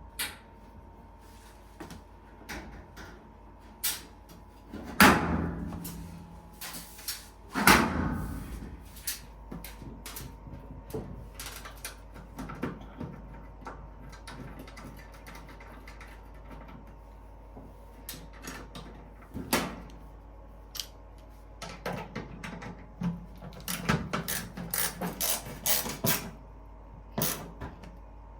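Clicks, clunks and knocks from hands-on work on a Whirlpool dryer during a belt replacement. There are two loud bangs about 5 and 8 seconds in, and a quick run of knocks near the end, over a faint steady hum.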